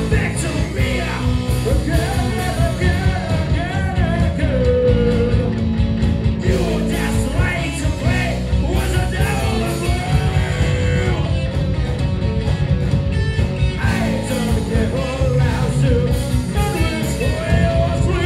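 Live rock band playing an old-school rock song: a male lead singer with electric guitars, bass guitar and drums.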